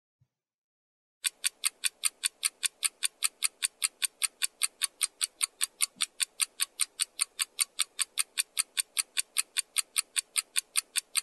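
Countdown-timer clock-ticking sound effect: fast, even, crisp ticks, about five a second, starting about a second in and cutting off abruptly. It marks the time given to answer the exercise.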